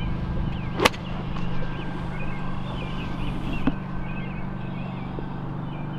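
A 52-degree wedge strikes a golf ball with one sharp click about a second in, over a steady low hum.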